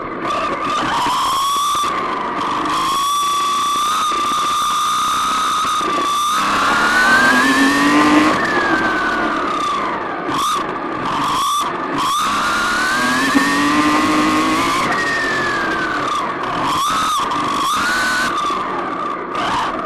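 Radio-controlled car's motor and drivetrain whining at a steady pitch. Twice it climbs in pitch on a long full-throttle run and falls back, with several brief cut-offs as the throttle is lifted for corners.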